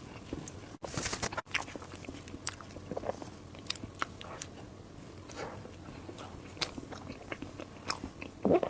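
A person biting and chewing food close to the microphone, with irregular wet clicks, smacks and light crunches.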